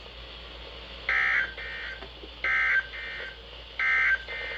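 Emergency Alert System digital data bursts (SAME end-of-message code) over weather radio: three short, shrill two-tone buzzes about 1.3 seconds apart, signalling the end of the severe thunderstorm warning.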